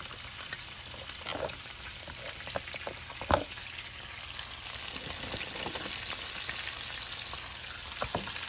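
Chopped vegetables (bean sprouts, snow peas, onion and red pepper) sizzling steadily as they fry in a pan, with scattered light clicks and one sharp knock a little over three seconds in.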